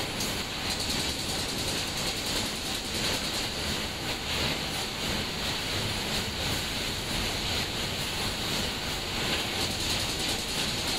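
Pocket spring assembling machine running as it joins strings of pocketed coils into a mattress spring unit: a steady, dense mechanical clatter with a strong hiss, unchanging in level throughout.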